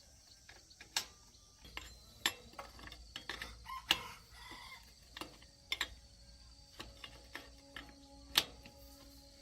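Irregular clicks and sharp knocks of hand tools and metal parts being handled during engine repair work, a dozen or so scattered strikes with no steady rhythm.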